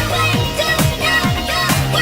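Pop dance music with a steady kick drum about twice a second under a held bass line and a synth melody.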